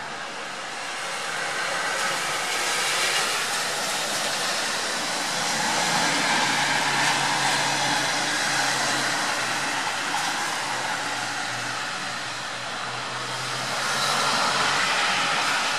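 Steady rain falling, a dense hiss that swells and eases over several seconds, with a faint low hum in the middle.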